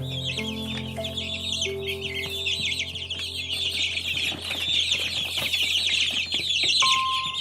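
A brood of chicks peeping nonstop, many high, rapid chirps overlapping one another.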